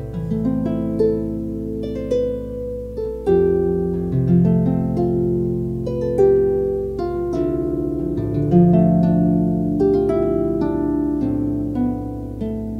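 Harp playing an unhurried run of plucked notes and chords, each left to ring over low bass notes.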